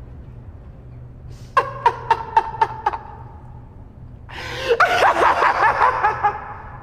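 A woman gagged with tape makes about six short, muffled, pitched cries in quick succession. About four seconds in she gives a longer, louder muffled scream through the gag.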